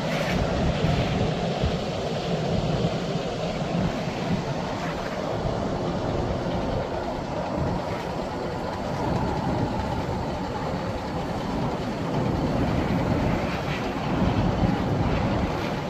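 Logan Track Pro 40-foot potato conveyor running, its belt rolling over the rollers, driven by a 3-horsepower, 3-phase electric motor. A steady rolling rumble, described as quiet running.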